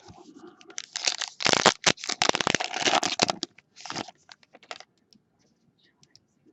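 A baseball card pack wrapper being torn open and crinkled, with about two and a half seconds of dense crackling and a shorter crinkle near four seconds in.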